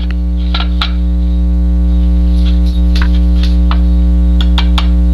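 Loud steady electrical mains hum throughout, with a scattering of short, sharp metallic clicks and taps as a small pin and punch are worked into the extractor pin hole of a Sig Sauer 1911 slide.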